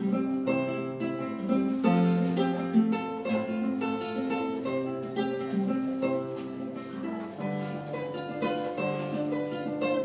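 Solo acoustic guitar playing an instrumental break in a song: picked chords over changing bass notes, with no singing.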